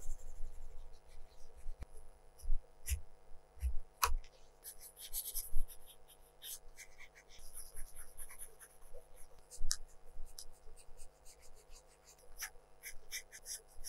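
Colored pencil scratching across drawing paper in short, irregular shading strokes, with one sharp tap about four seconds in and a run of quick short strokes near the end.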